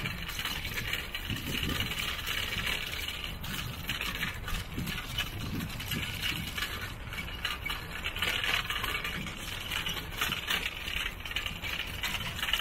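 Street noise from a moving bicycle: a steady low rumble with a hiss above it and frequent small rattles and clicks.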